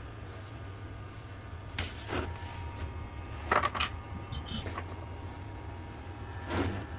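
Small scrapes and clicks of hand tools working on a phone's circuit board, about five short ones spread through, over a steady low hum.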